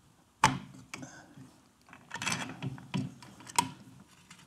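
Hand-handling clicks and taps as small parts are fitted at a motorcycle's front fork yoke: a sharp click about half a second in, a cluster of light rattling taps between about two and three seconds, and another sharp click near the end.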